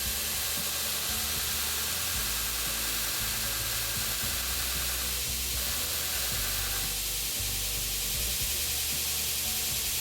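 Grinder running steadily with steel pieces held against it, a continuous hiss as they are ground square.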